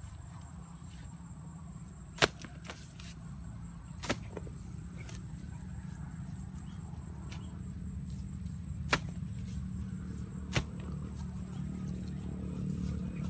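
Hoe blade chopping into soil, four sharp strikes a couple of seconds apart, over a steady low rumble.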